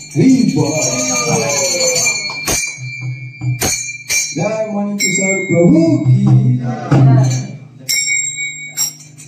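Men's voices over the high, steady ringing of a small metal bell, struck anew about five and eight seconds in, with a few sharp clacks in between.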